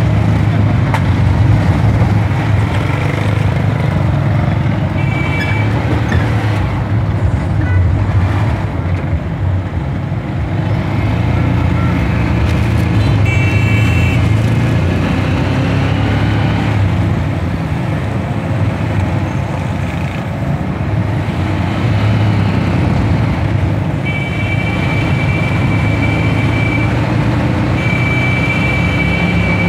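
Steady rumble of a moving vehicle heard from inside the cabin. A high tone sounds briefly a couple of times and for longer near the end.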